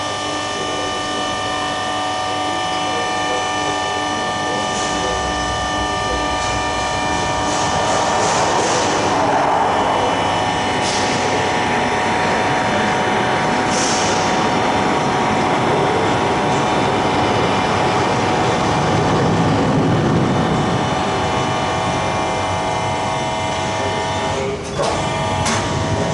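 Full-scale working model of a Lancaster main undercarriage retracting under power: its drive machinery runs with a steady hum and a rush of noise that swells through the middle. Two sharp knocks come near the end.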